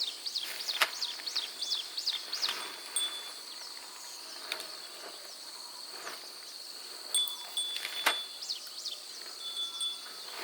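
Outdoor nature ambience: a steady high-pitched drone with runs of short, quick falling chirps near the start and again near the end, and a few scattered sharp ticks.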